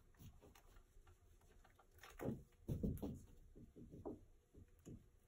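Soft handling sounds of cotton rope being pulled and knotted on a rope-wrapped frame: light rustles and small clicks, with a louder low sound about two to three seconds in.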